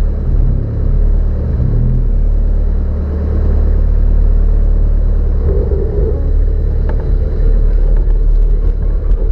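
Off-road 4x4's engine running at low revs with a steady low rumble as the vehicle creeps downhill, swelling briefly about halfway through, with a light knock a second or so later.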